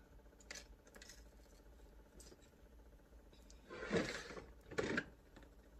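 Objects being handled and rummaged through: a few faint light clicks, then two short bursts of rustling about four and five seconds in.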